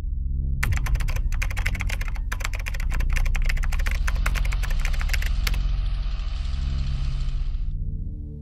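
Rapid keyboard-typing clicks, a typing sound effect as on-screen text is spelled out, over a low steady drone. The clicking stops about five seconds in and gives way to a soft hiss that fades out near the end.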